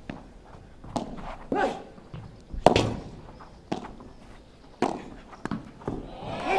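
Padel rally: the ball struck back and forth with padel rackets and bouncing on the court, about seven sharp hits roughly a second apart, the loudest about two and a half seconds in. Crowd applause swells up at the very end as the point finishes.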